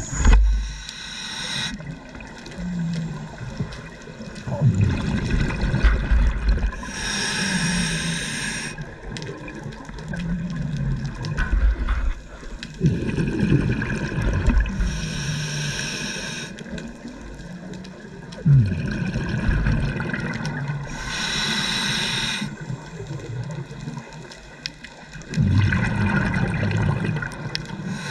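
Scuba diver breathing underwater through a regulator: a hissing rush of breath and bubbles about every six to seven seconds, with low rumbling and burbling in between.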